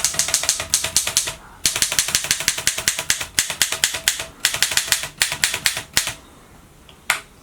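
A 1937 Erika M portable typewriter being typed in quick runs, its typebars striking the platen several times a second. There are three runs of strokes with short pauses between them, and one lone stroke near the end.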